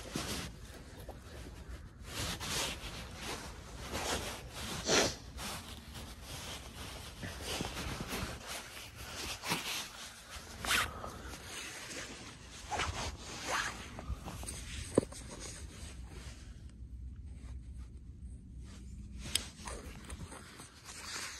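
Winter coat fabric rustling and scraping close to the microphone in a run of short, irregular strokes, as hands search the coat's pockets and zips for a knife.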